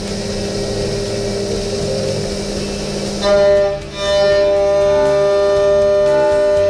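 OKK VC-X500 5-axis machining center milling a metal block under flood coolant. Cutting noise with coolant spray turns into a steady, pitched whine about three seconds in.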